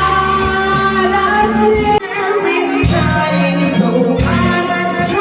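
Background music: a pop song with a sung vocal line over its accompaniment.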